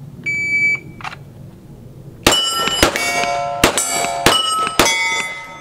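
A shot timer gives its start beep, then about a second and a half later a 9mm Glock 17 fires five quick shots, each hit followed by a steel target plate ringing.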